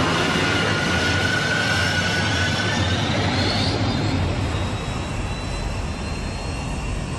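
Animated sound effect of a futuristic F-Zero hover racing machine speeding along the track: a steady jet-like rush with thin whining tones, one rising in pitch midway.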